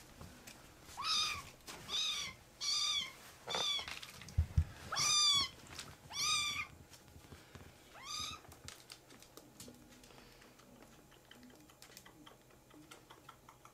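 Kitten meowing about seven times in the first eight seconds: short high calls that drop in pitch, one of them longer. A low thump comes about four and a half seconds in, and faint light clicks follow.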